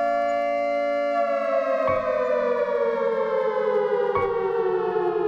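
Civil defense siren sounding a steady chord of several tones, then sliding slowly down in pitch from about a second in and starting to rise again right at the end. Two faint clicks are heard over it.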